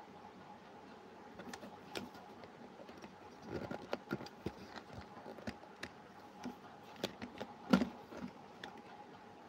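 Handling noise from a phone camera being adjusted: scattered light clicks and knocks, one louder knock near the end, over a faint steady hum.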